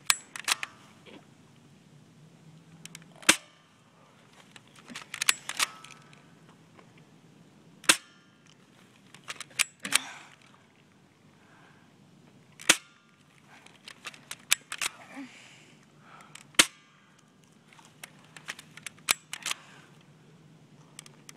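Marines SR01 airsoft rifle firing single shots, a sharp snap about every four to five seconds, with smaller clicks and rattles between the shots.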